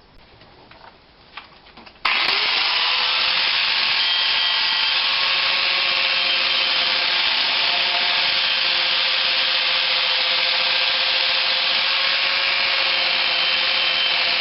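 An electric power tool starts up about two seconds in, its motor whine rising as it spins up, then runs steadily with a harsh abrasive hiss as it works on the car's bodywork.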